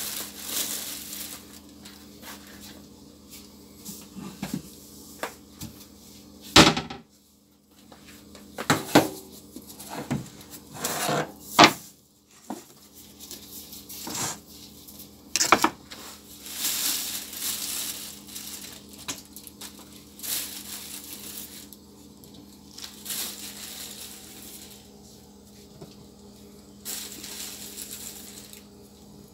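Kitchen handling noise: plastic bag rustling and scattered sharp knocks and clinks of containers and lids being handled, the loudest knock about seven seconds in. A steady low hum runs underneath.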